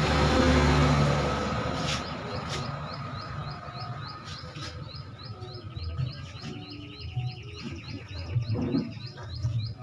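A vehicle passes at the start and fades within a couple of seconds. Then a bird calls a rapid, even series of short high chirps, about three or four a second, with a buzzy trill under it for a few seconds midway.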